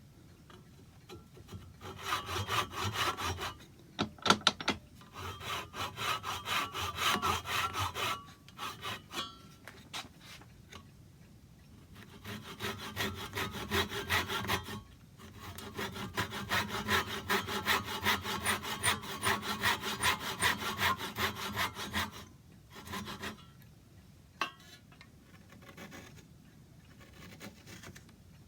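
Hand saw cutting through wood in steady back-and-forth strokes. It comes in several bouts with short pauses between them.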